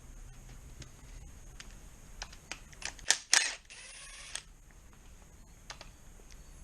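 Scattered sharp clicks and knocks of tools and parts being handled on a Rover V8 engine under strip-down. Two loud knocks come about three seconds in, followed by a brief rattle.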